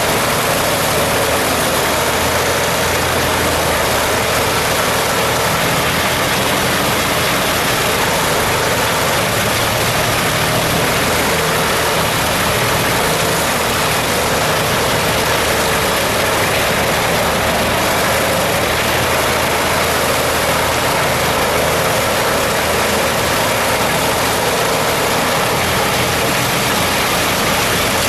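A heavy machine's engine running steadily under a loud, even rushing noise that holds unchanged throughout.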